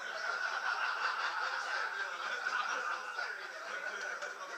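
A group of people laughing together, starting suddenly and keeping on.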